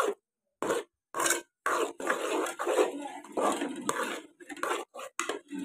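Steel spatula scraping and stirring thick cooked semolina in an aluminium pan, in a run of short, irregular strokes.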